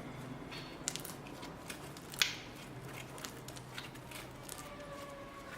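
Slime being squeezed and handled: scattered small sticky clicks and crackles, with one sharper snap about two seconds in.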